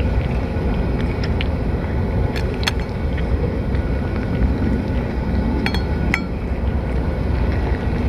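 A cat eating from a shallow stainless steel dish. Its mouth and the food knock against the metal in scattered sharp clinks, and two of them, about six seconds in, set the dish briefly ringing. A steady low rumble runs underneath.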